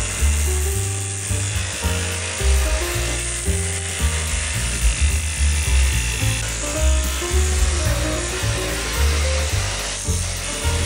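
Background music with a changing bassline, laid over the buzz of a cordless jigsaw with a fine-tooth blade cutting thin 1/8-inch plywood.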